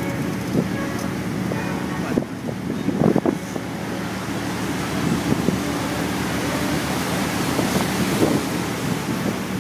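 Steady drone of a sightseeing boat's engine under way, with water and wind noise, and a few louder bumps about three seconds in.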